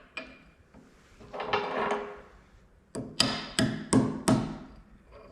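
Hammer tapping on a metal part of a ratchet wrench: about five sharp, ringing strikes, roughly three a second, starting about three seconds in, after a few faint clicks and a brief metallic rattle.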